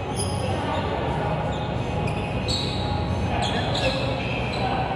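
Volleyball being struck during a rally: a few sharp slaps of hands and arms on the ball, echoing in a large gym hall over a steady low hum.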